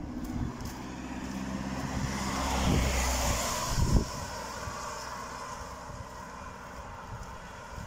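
A car passing on a wet road: engine hum and tyre hiss swell to a peak about three seconds in, then fade as it drives away. A single thump about four seconds in.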